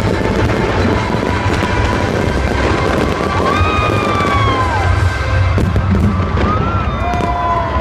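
Fireworks crackling and popping over loud music, with a low rumble underneath. A couple of whistle-like rising and falling tones come about halfway through and again near the end.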